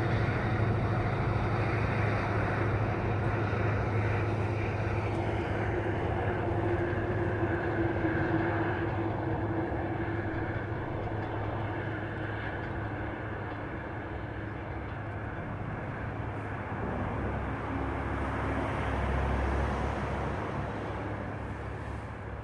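Mugunghwa-ho passenger train running past on the track: a steady rumble with a low hum that slowly fades as it moves away, swelling briefly again before dying down near the end.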